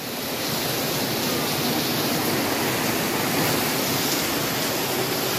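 Heavy rain pouring down while a fresh gust of storm wind comes through, a steady rushing noise that swells a little during the first second.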